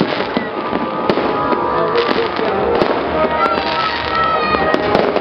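Fireworks display: a dense run of bangs and crackling bursts from shells exploding overhead.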